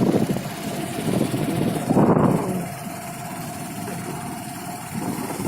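Motor vehicle running, heard from inside it: a steady rumble with a faint continuous whine, swelling louder briefly about two seconds in.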